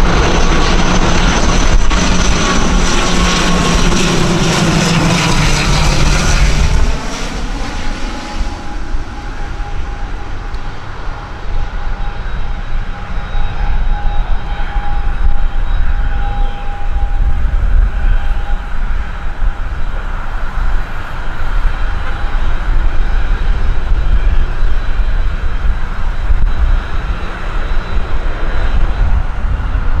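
ATR 72 turboprop airliner passing low overhead on approach, its propeller drone falling in pitch as it goes by. About seven seconds in the sound cuts to a quieter, steadier turboprop drone with a held whine, over heavy wind rumble on the microphone.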